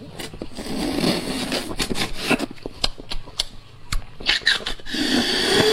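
A person slurping and sucking marrow out of a lamb shank bone and chewing it, with many wet mouth clicks and smacks and a longer slurp near the end.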